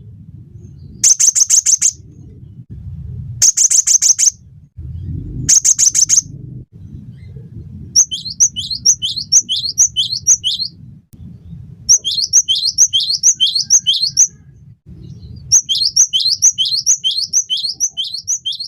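Cinereous tit (gelatik batu) singing. Three short, very rapid high trills come in the first six seconds, then three runs of repeated falling whistled notes, about four a second, each run lasting two to three seconds. A low steady hum runs underneath.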